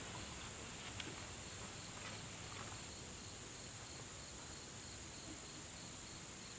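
Insects chirping in the background: a steady high drone with a fast, even pulsing chirp beneath it, and one faint tick about a second in.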